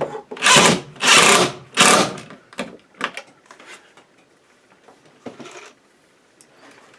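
Cordless drill driving a screw to fasten a clamp on PVC conduit, run in three short bursts as the screw is snugged down. Scattered light clicks and knocks follow.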